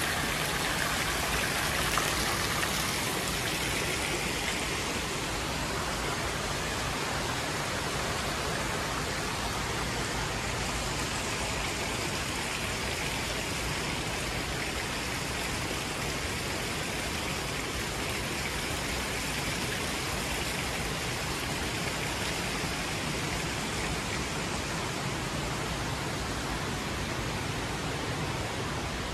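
Splashing of a small fountain's jet falling into its basin, loudest in the first few seconds, then a steady even rush of water noise.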